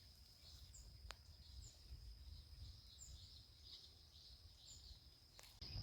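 Faint forest ambience: a steady high-pitched insect drone with several short, high bird chirps over a low rumble. There is a single sharp click about a second in.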